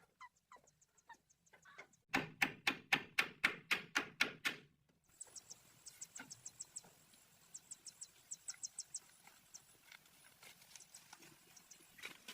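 A rapid, even run of sharp knocks, about four a second, loudest from about two to five seconds in, followed by fainter, lighter tapping.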